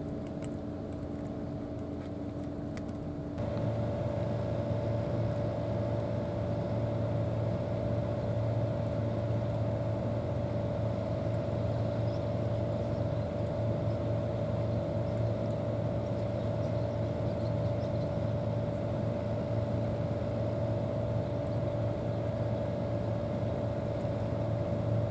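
Steady drone of a boat's engine heard on board, a constant hum that grows louder and deeper about three seconds in, then holds steady.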